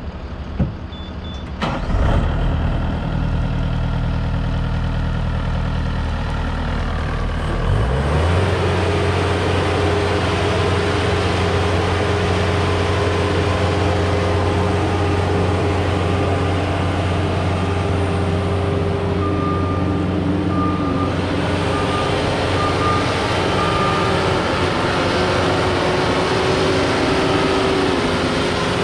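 Bobcat Toolcat 5610 utility work machine's diesel engine running at low speed, then revving up about eight seconds in and holding a steady higher speed as the machine drives. A string of short, high beeps sounds around two-thirds of the way through.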